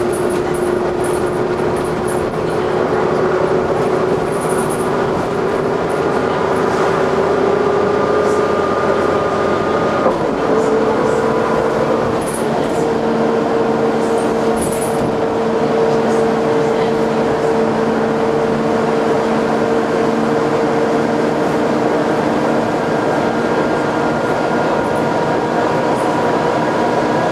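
Dennis Trident double-decker bus on the move, heard from inside the lower deck: a steady drone of engine and running gear with a whine that rises slowly, jumps up in pitch about ten seconds in, then holds steady.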